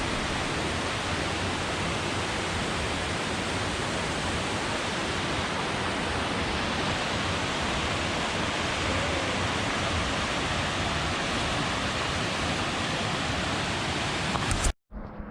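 Waterfall pouring, a steady, even rush of water with no change in level. It cuts off suddenly near the end.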